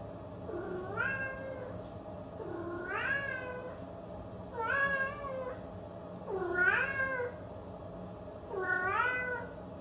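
A cat meowing five times, about two seconds apart, each meow rising and then falling in pitch.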